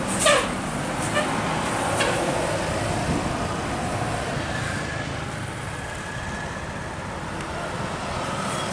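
Road traffic on a climbing bend: vehicle engines and tyres running steadily. A brief sharp sound comes about a quarter second in and is the loudest moment.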